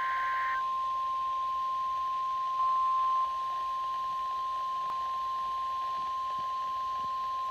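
NOAA Weather Radio's 1050 Hz warning alarm tone: one steady, loud beep held throughout, the signal that an emergency alert, here a Special Marine Warning, is about to be read. A second, higher tone cuts off about half a second in, and the tone briefly gets louder a few seconds in.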